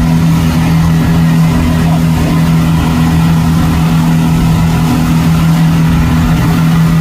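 Speedboat engine running steadily at constant speed, a loud low hum that holds one pitch throughout.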